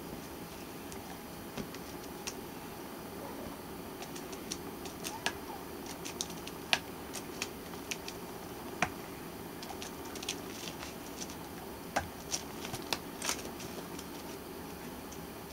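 A tortoiseshell kitten clawing and biting at a torn cushion, making irregular small clicks and crackles, most of them through the middle stretch, over a steady low hum.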